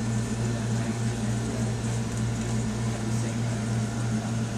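Steady low electrical hum of a running appliance or machine, two even tones with no change in pitch or level.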